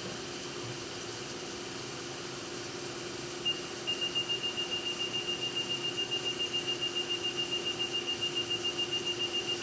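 Haas VF-2 CNC vertical machining center running with a steady hum. About a third of the way in, a rapid high-pitched beeping starts, about five beeps a second, and keeps going.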